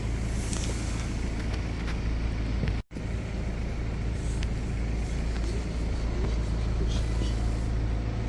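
Steady low rumble of a running vehicle, with the sound cutting out for a moment about three seconds in.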